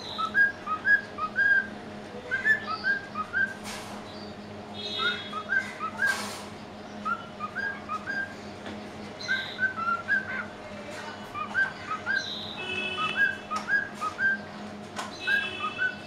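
White-faced cockatiel whistling a tune: short whistled notes in quick groups of three or four, repeated phrase after phrase.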